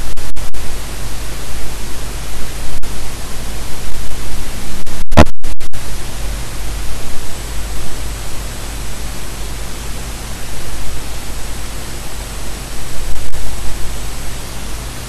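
Loud, steady static-like noise with a deep rumble underneath. It cuts out for brief moments near the start and again about five seconds in, where a sharp click sounds inside the gap.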